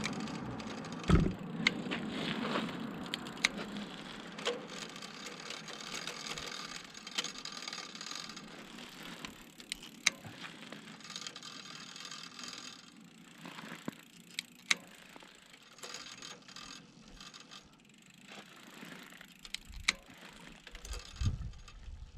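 Hands working on a bicycle's rear derailleur and gear cable: scattered metallic clicks, ticks and taps. The derailleur is bent after catching on a cable. A passing vehicle fades out at the start.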